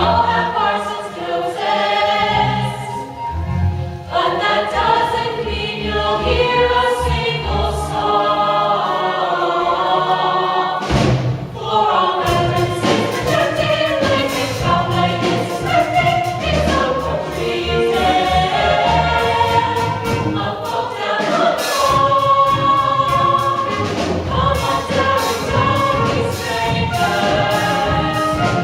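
A cast ensemble singing a number from a stage musical, many voices together over instrumental accompaniment, with a brief break about eleven seconds in.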